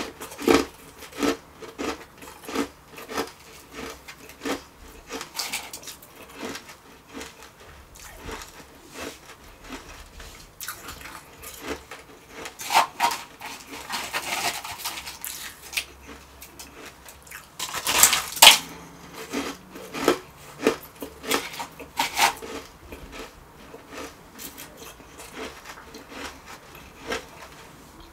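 Close-miked crunching and chewing of refrozen shaved ice: a continuous run of crisp, crackly crunches, with several louder bouts of crunching as fresh mouthfuls are bitten.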